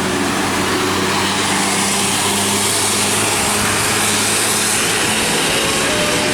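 Large tour bus driving past at close range: its engine running under a steady loud rush of road and air noise.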